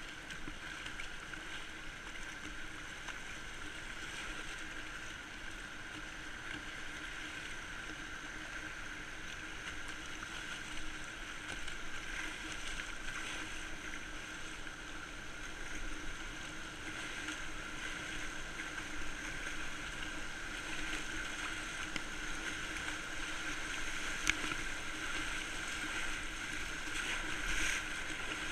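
Steady rush of fast river whitewater around a kayak running rapids at high water, with paddle splashes. A sharp click sounds about 24 seconds in, and water splashes over the camera near the end.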